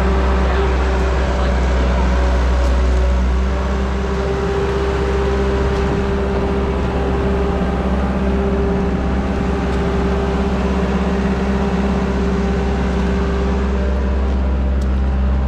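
2008 ASV SR-80 tracked skid steer's diesel engine running steadily, a continuous droning hum that eases slightly about three and a half seconds in.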